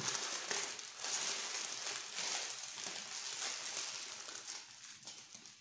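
Baking paper crinkling and rustling as it is folded and twisted closed around a fish fillet into a parcel; the rustle is irregular and fades toward the end.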